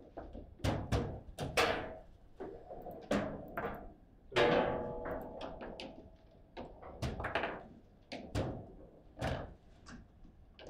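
Foosball match in play: the hard ball struck by the plastic figures and knocking off the table's walls, with rods clacking, a series of sharp knocks at uneven spacing. The loudest knock, about four seconds in, rings on briefly.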